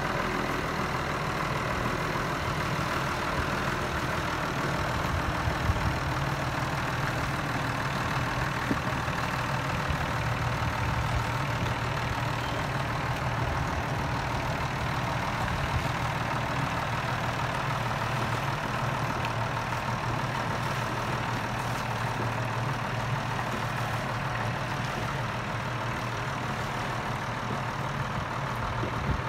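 Ford farm tractor engine running steadily at low revs while it backs a loaded boat trailer down a launch ramp, the engine note firming up about a third of the way in.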